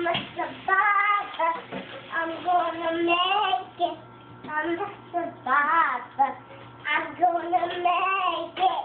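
A young girl singing a song, in phrases with short gaps between them.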